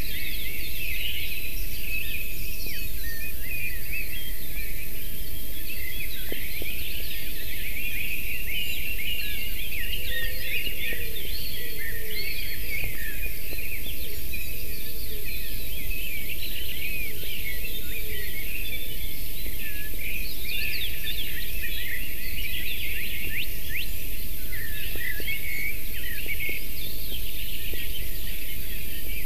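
Many small forest birds singing at once, with overlapping chirps and trills, over a steady low rumble of background noise.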